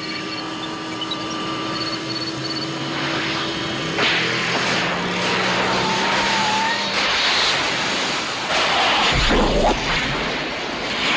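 Movie sound effects of the DeLorean time machine car speeding up: its engine rises, crackling electrical discharges build into a dense rushing wash, and a heavy low boom comes about nine seconds in as the car vanishes. Orchestral score plays underneath.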